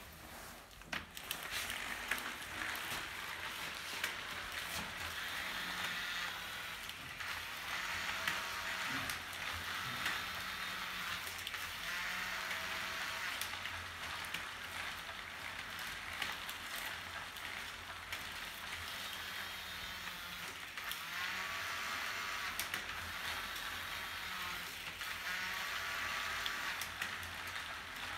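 Rear wheel of an e-bike with a NuVinci N360 continuously variable hub spinning freely, a steady whirring hiss with a faint whine that comes and goes, during an attempt to calibrate the hub's Harmony electronic shifter.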